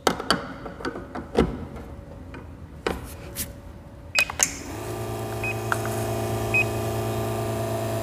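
Clicks and knocks of a portafilter being locked into a La Marzocco espresso machine's group head and a cup set down. A short beep follows, then about five seconds in the machine's pump starts a steady hum as the espresso shot begins extracting, with two more short beeps over it.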